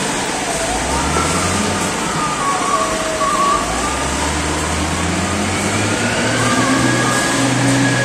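Wheel loader's diesel engine running and changing speed, with whining tones that rise and fall in pitch, over the steady noise of plant machinery.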